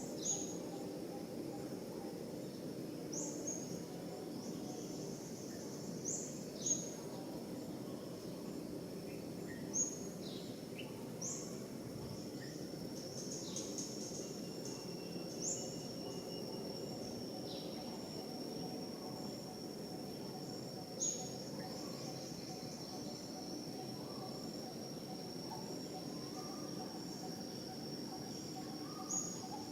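Outdoor ambience with a steady high-pitched insect trill. Short, sharp chirps falling in pitch come every few seconds, with a low steady hum beneath.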